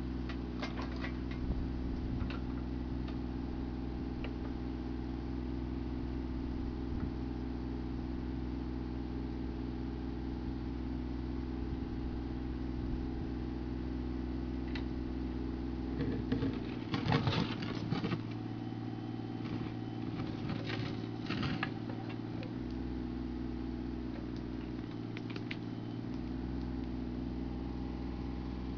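Mini excavator's diesel engine running steadily while the machine digs a trench. The bucket knocks and scrapes through soil and stone, loudest in a cluster about 17 seconds in and again around 21 seconds.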